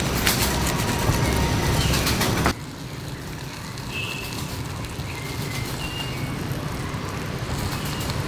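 A steady noisy background with scattered clicks cuts off abruptly about two and a half seconds in. It gives way to quieter ambience with a low rumble and a few faint bird chirps.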